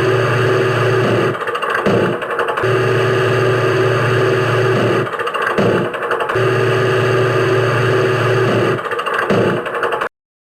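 Engine start-up sound effect played over and over: a steady engine hum repeats about every three and a half seconds, broken by a short change between repeats, then cuts off suddenly near the end.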